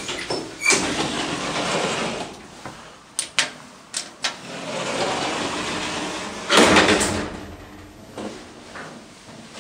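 Elevator doors sliding in several noisy stretches, the loudest about six and a half seconds in, with a few sharp clicks around three to four seconds in as a cab button is pressed.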